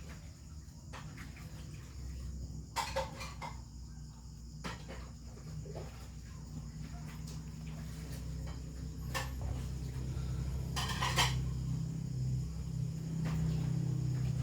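Scattered clinks and short rattles of small hard objects being handled, with a cluster about three seconds in and another near eleven seconds, over a steady low hum that gets louder in the second half.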